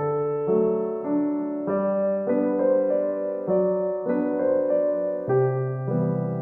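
Background music: a gentle piano piece, sustained chords changing about every second.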